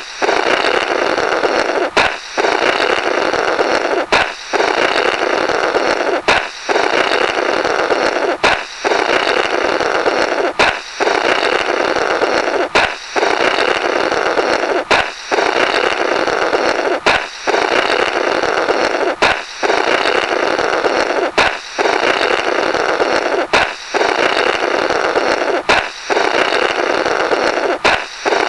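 Comic 'Blorrrt' balloon sound effect, looped: a balloon pops, then a long buzzy, flapping blow through the burst rubber. It repeats about every two seconds, some thirteen times.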